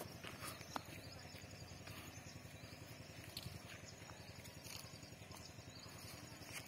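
Faint footsteps of someone walking a dirt path, heard as scattered light clicks at irregular times over a steady low rumble of outdoor background.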